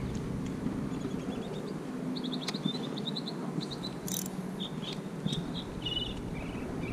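Outdoor ambience: high, short chirps from small animals come in quick runs of several notes throughout, over a low steady rumble.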